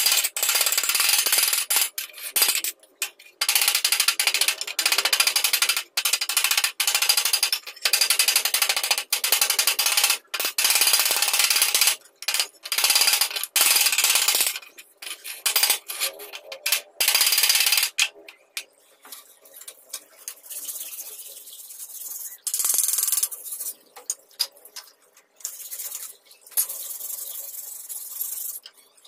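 Steel hammer rapidly striking a rusty cleaver blade clamped in a bench vise, metal on metal, knocking at the scaly rust. For roughly the last third the sound is quieter, scraping at the rusty blade by hand.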